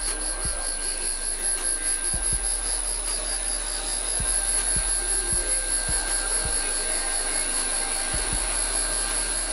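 Valve face grinder refacing an engine valve: the wheel and the spinning valve run steadily under a flow of cutting oil, with a steady high whine over a grinding hiss.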